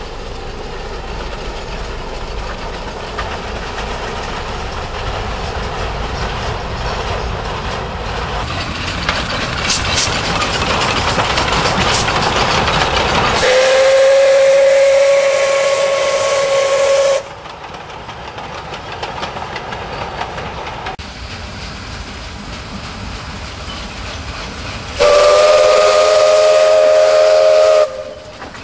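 Chinese C2-class narrow-gauge steam locomotive working a train of four-wheeled wagons, its running and rail noise building as it draws near. The whistle sounds twice: first a single steady note for about four seconds, then near the end a blast of nearly three seconds with several notes at once.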